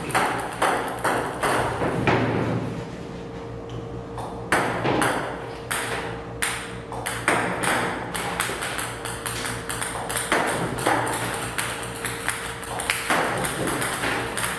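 Table tennis balls from a ball-throwing robot clicking on the table in quick, uneven succession, about two to three a second, with a short lull a couple of seconds in, over a steady hum.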